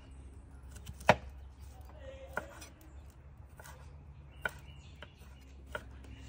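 Kitchen knife slicing fresh ginger on a wooden cutting board: irregular knife taps against the board, the loudest about a second in.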